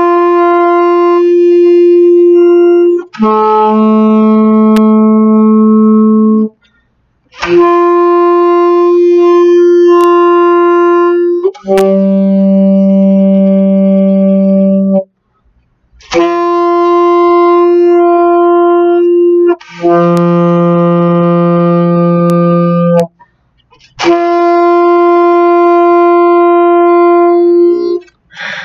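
Alto saxophone playing long tones: a held higher note of three to four seconds steps down to a lower held note with a brief break between them. The pair comes three times, the lower note lower each time, with short breath gaps between pairs, and a last held higher note ends the run.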